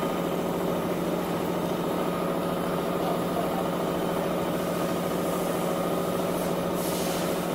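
Metal lathe running steadily as it turns a steel roller shaft: a constant machine hum with a steady pitched tone, unchanging throughout.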